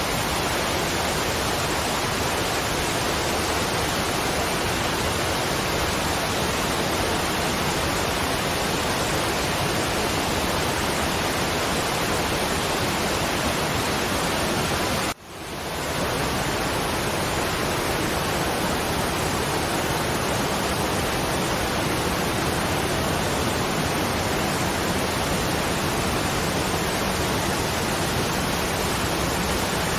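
Waterfall: falling water making a steady, even rush. About halfway through it cuts out sharply for a moment and fades back in.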